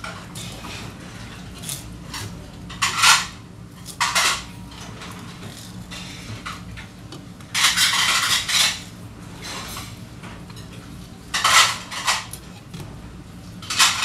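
Long sashimi knife scraping and slicing along the bones of a flounder on a cutting board, in short strokes a few seconds apart, with one longer stroke about eight seconds in. A steady low hum runs underneath.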